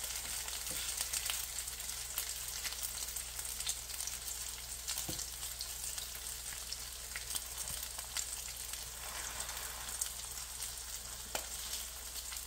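Bean sprout and shrimp omelette sizzling steadily as it fries in a nonstick skillet, with scattered light clicks of spatulas against the pan.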